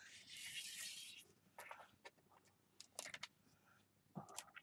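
Faint rubbing of fingers sliding small alloy charms across paper, followed by a few faint clicks as charms are picked up and set down.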